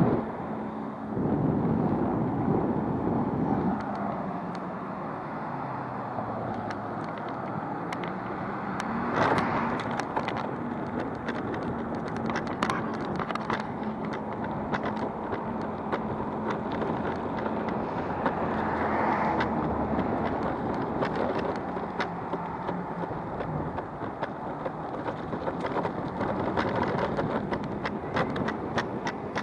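Backfire Ranger X2 electric skateboard riding along pavement: a continuous rumble of its wheels on the road with a steady low hum, and scattered ticks through most of it.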